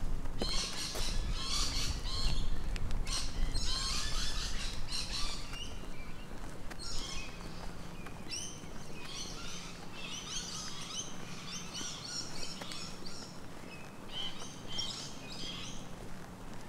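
Australian bush birds chirping and calling, several quick bright trills and chirp phrases repeating with short gaps. A low rumble and a few clicks sit under the birds in the first five seconds.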